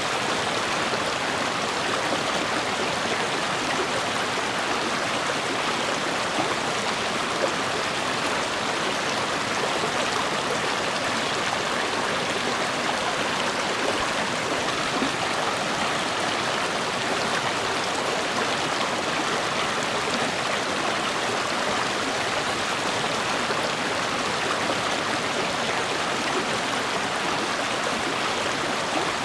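A river or stream running over rocks, a steady rushing and splashing of water.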